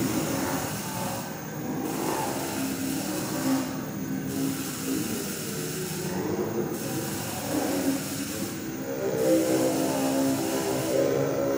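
Experimental live electronic music: a dense, hissing, machine-like drone with sustained tones that layer up into several held pitches near the end. Its high end cuts out briefly about every two and a half seconds.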